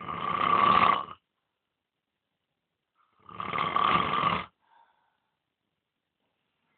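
A man snoring in deep sleep: two long snores about three seconds apart, each lasting about a second.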